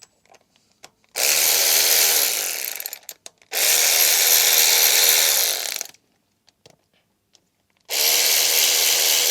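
A handheld power tool runs in three bursts of about two seconds each, the first starting about a second in and the last running on past the end.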